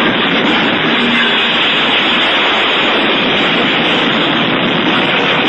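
Loud, steady static hiss, like television snow, edited in over the black screen to stand for the moment of the crash.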